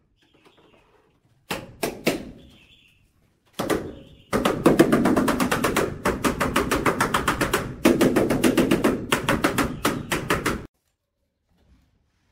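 Rubber mallet tapping a large ceramic wall tile to bed it into the mortar: a few separate knocks, then a fast, even run of taps, several a second, for about six seconds, stopping abruptly.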